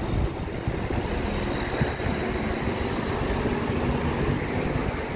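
Street traffic: a motor vehicle's engine running nearby over a steady low rumble of street noise.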